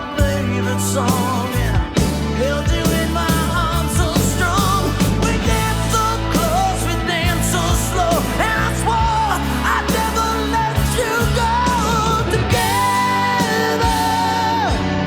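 Rock power ballad playing: a male lead vocal sung over electric guitars, bass and drums.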